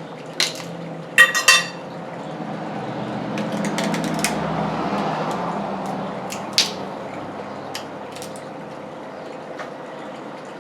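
Clicks and clinks of utensils and crab shell while king crab legs are eaten, with a ringing clink about a second in and a few sharper clicks around the middle, over a rising and falling rustle.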